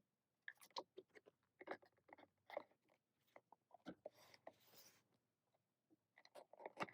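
Faint crinkling and rustling of an album's packaging and paper inserts being handled, in scattered clicks, with a longer rustle about four seconds in.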